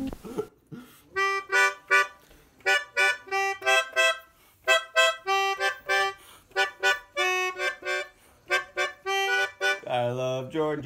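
Melodica played by blowing through its flexible mouthpiece tube: a tune of short, separate reedy notes, many repeated on the same pitch. Near the end it moves to a held, lower chord.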